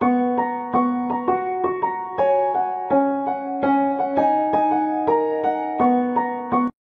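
Background music: a piano melody of single notes, about three a second, over held lower notes.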